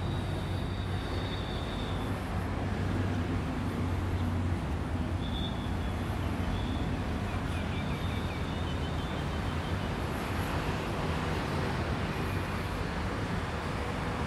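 Steady outdoor traffic noise with a low engine hum and a few faint high chirps.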